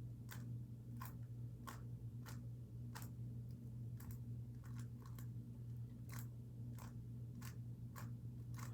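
Rubik's Cube faces being turned by hand, each twist a short plastic click, about fourteen clicks at roughly half-second intervals as an algorithm is run through. A steady low hum sits underneath.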